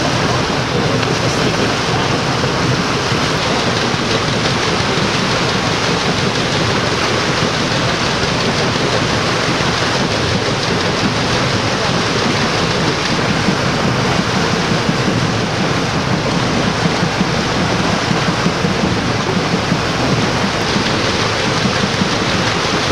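Steady rushing and splashing of water churned up by the steam paddle boat PS Waimarie under way.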